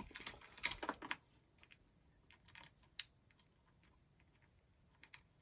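Light clicks and taps of small plastic and metal parts being handled while a hairdryer is taken apart, busiest in the first second, then a few isolated clicks, one sharper about three seconds in.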